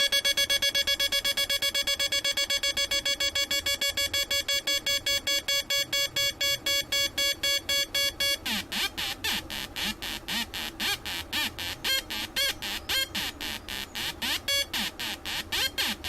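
Homemade Atari Punk-style two-oscillator sound-effects circuit buzzing through a small loudspeaker: a harsh electronic tone chopped on and off several times a second, because the first oscillator switches the second on only while its output is high. About eight seconds in the sound changes to a rougher, less regular stuttering chatter as the oscillator settings change.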